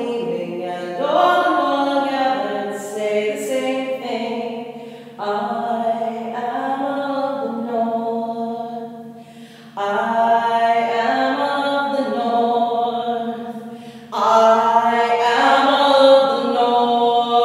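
A woman singing unaccompanied, holding four long notes in turn, each swelling and then fading before the next begins. The last note is the loudest.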